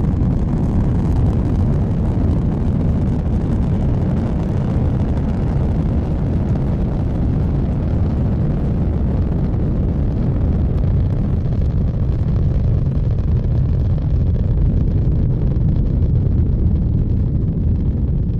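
Space Shuttle launch: the deep, steady rumble of its rocket engines and solid rocket boosters at liftoff and climb-out, loud and unbroken.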